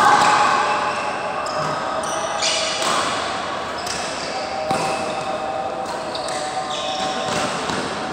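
People's voices calling and talking in a large, echoing badminton hall, with a sharp knock right at the start and a few brief knocks and squeaks later on.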